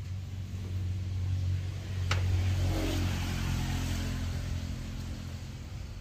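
Combine harvester's diesel engine running steadily, with a sharp click about two seconds in followed by a brief swell in engine noise.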